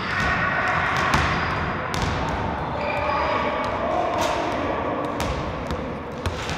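Basketballs bouncing on a gym floor and coming off the backboard and rim during shooting practice: an irregular string of sharp thuds.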